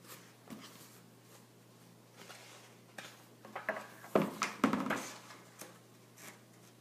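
Handling noises from a picture book being moved and put aside: soft rustles and a few knocks, the two loudest knocks a little past the middle.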